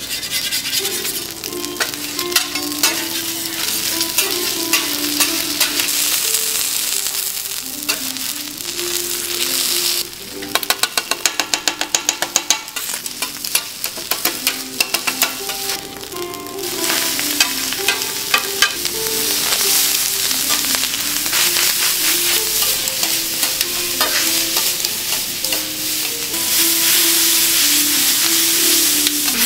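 Egg and rice sizzling on a steel teppanyaki griddle while metal spatulas scrape and chop them. About ten seconds in comes a quick run of spatula clacks on the griddle, lasting a couple of seconds.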